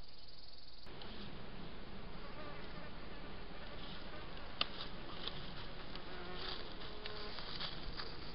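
Flying insects, flies or bees, buzzing close to a trail camera's microphone, their pitch wavering as they move about; the buzzing starts about a second in, after a short stretch of plain hiss. A single sharp click comes about halfway through.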